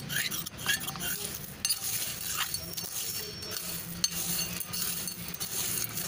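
A small metal spoon scrapes and stirs washed stone chips in the metal bowl of a bitumen extraction centrifuge, with repeated scraping and clicking of stone on metal. The aggregate is being turned so that the leftover benzene evaporates and it dries before weighing.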